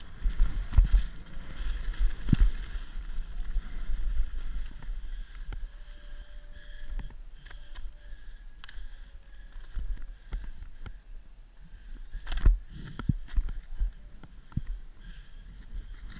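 Wind rumbling over the microphone as a skier glides along, with skis scraping over the snow and scattered knocks and clicks, louder near the start and again about three-quarters of the way through.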